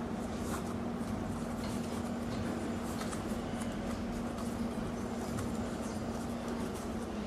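Faint rustling and light clicks of young coconut-leaf strips being handled and woven into a ketupat casing, over a steady low hum.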